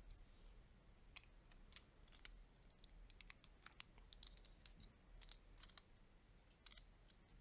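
Faint, irregular clicks and taps of small plastic Lego pieces being handled and snapped together, a few at a time, the sharpest about five seconds in.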